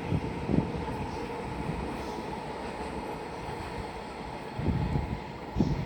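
Freight train of an EF210 electric locomotive and four tank wagons running through: a steady rumble of wheels on rail, with a few low thumps about half a second in and near the end.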